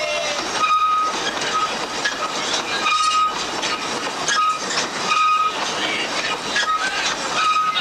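Underground mine man-riding carriages rolling past on rails with a steady rumble and clatter of wheels. Short high squeaks recur every second or so.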